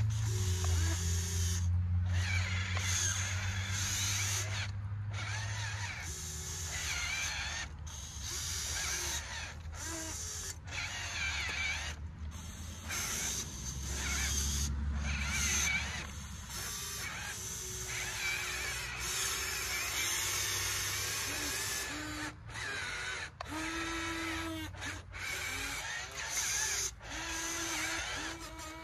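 Small electric motors and gearboxes of radio-controlled construction models whining in short bursts that rise and fall in pitch as the machines dig, with scraping and clicking throughout.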